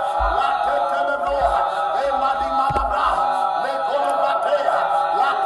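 Many voices chanting together in a dense, overlapping mass, with low thuds during the first three seconds.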